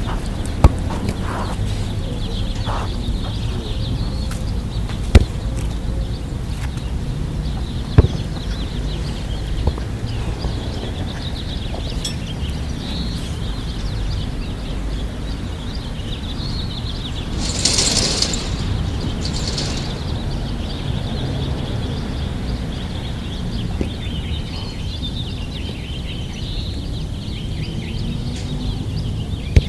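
Outdoor ambience: a steady low rumble with faint bird chirping over it. There are a few sharp knocks in the first eight seconds and a brief hissing rustle about eighteen seconds in.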